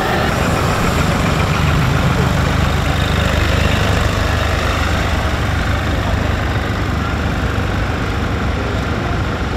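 Diesel farm tractor engine running with a steady low hum as the tractor drives slowly past and away, getting slightly quieter near the end.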